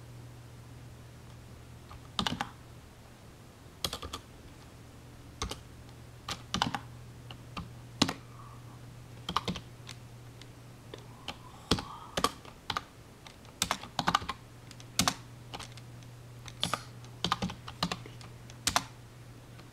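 Computer keyboard keystrokes, slow and irregular, single taps and short runs starting about two seconds in, over a steady low hum.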